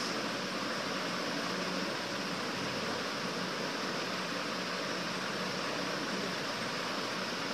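Steady, even hiss of background noise with no change throughout.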